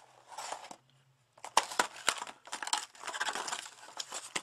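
Packaging being handled during a headphone unboxing: crinkling and crackling with sharp clicks, a brief pause about a second in, then denser crinkling.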